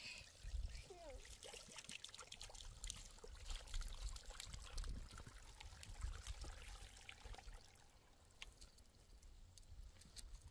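Water running from a hose pipe into a plastic jerrycan: a faint, uneven pouring trickle.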